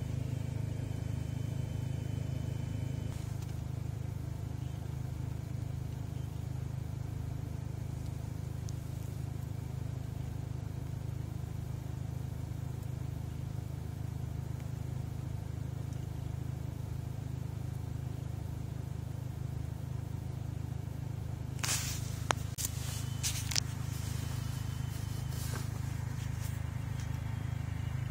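Steady low rumble of a car heard from inside the cabin. A cluster of sharp clicks and rustles about three-quarters of the way through as the box is handled.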